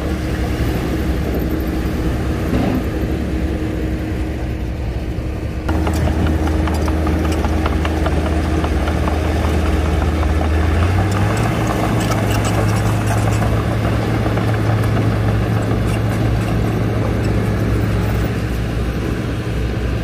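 Diesel engines of a Shantui crawler bulldozer and a dump truck running at a steady drone. The sound changes abruptly about six seconds in, the engine note steps up slightly around eleven seconds, and light metallic clanks are scattered through the second part.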